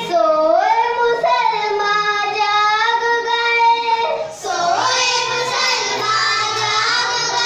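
A group of young girls singing a patriotic song together into microphones, holding long notes, with a short break for breath about four seconds in.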